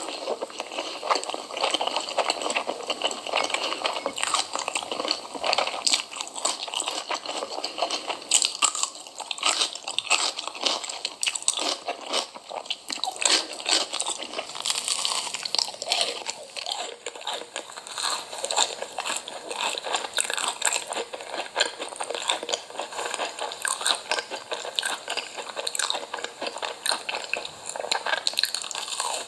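A person eating crunchy food close to the microphone, with repeated crunching bites and chewing.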